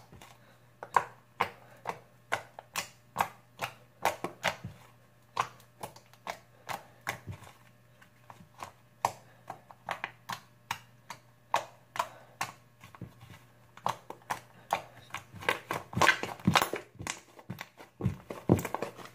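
Homemade fluffy slime, mixed with shaving cream, being kneaded and pressed against a table by hand, making sharp clicking and popping squelches about two to three times a second that come faster near the end.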